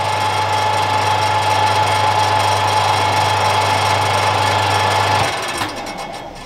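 Warco WM180 mini lathe running with a steady whine and hum, then switched off about five seconds in and spinning down to a stop.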